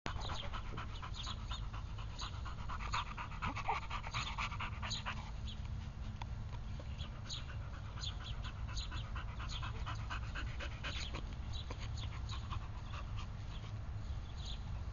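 A dog panting rapidly while it mouths a rubber ball, over a steady low rumble.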